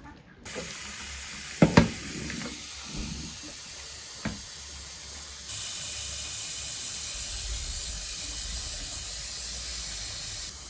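Kitchen tap running a steady stream of water into a metal pot of raw meat chunks, rinsing the meat. Two loud knocks come about a second and a half in, and a lighter one a little before halfway.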